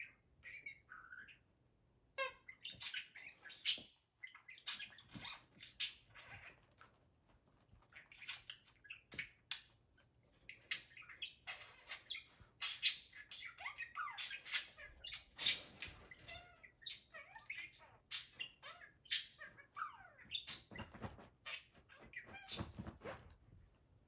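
Budgerigar chattering excitedly: a fast, uneven run of high chirps, warbles, squawks and clicks in quick bursts with brief pauses.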